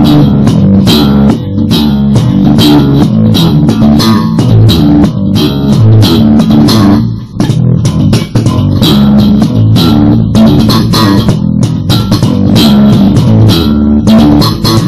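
Electric bass played slap style: a funk groove of thumb slaps and popped strings with hammer-ons and pull-offs, with a short break about halfway through.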